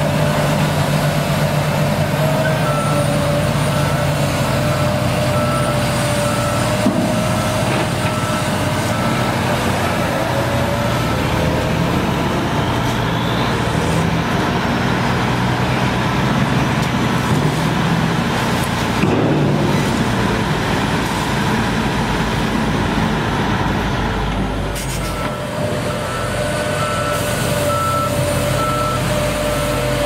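Diesel engine of a John Deere rubber-tracked dozer running steadily under load as it pushes sand with its blade. A reversing alarm beeps about once a second through the first half and again near the end.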